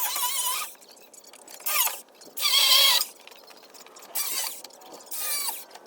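Shock-absorber bracket bolt squealing metal on metal as it is turned with a wrench, in five short bursts about half a second each, with a wavering squeak in each.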